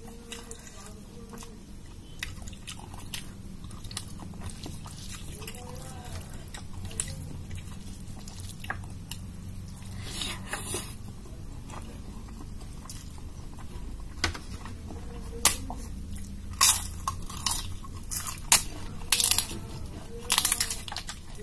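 Close-up eating sounds: chewing rice and dal, then from about two thirds in a run of loud, sharp crunches as a crisp papad is crushed by hand and bitten.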